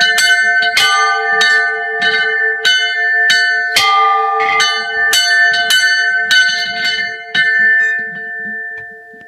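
Church bells rung by hand, struck in quick succession at about three strokes a second over a steady ringing hum. The strokes stop a little past seven seconds in and the bells ring on, dying away.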